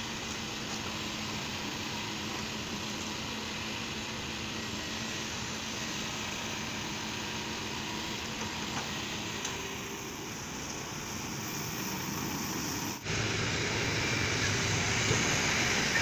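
Kobelco SK220XDLC hydraulic excavator's diesel engine running steadily under work as it pushes soil into a trench. About thirteen seconds in the sound cuts off for an instant and comes back a little louder.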